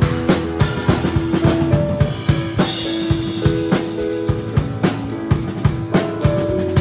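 Acoustic drum kit playing a steady beat of kick and snare with cymbals, over held notes from the rest of the worship band. A cymbal crash rings out at the very start.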